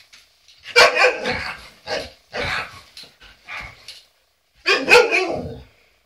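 Alaskan malamutes barking in a series of short outbursts, loudest about a second in and again near the end: dogs protesting at a vacuum cleaner.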